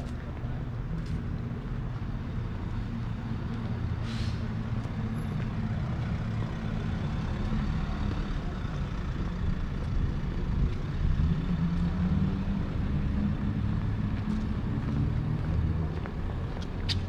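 Street traffic: a large road vehicle's engine running with a steady low hum, and a brief hiss about four seconds in.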